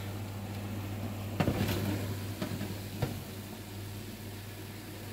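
Metal baking tray pulled out along the oven rack: a few clanks and scrapes in the middle, over a steady low hum.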